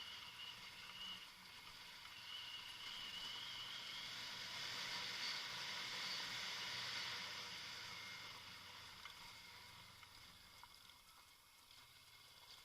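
Kawasaki Versys motorcycle engine running under a steady rushing hiss, fading away over the last few seconds.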